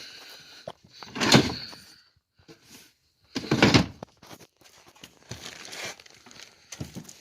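Rummaging through boxes and bags of clothes and household goods: two loud scraping thumps, one about a second in and one about halfway, with quieter rustling around them.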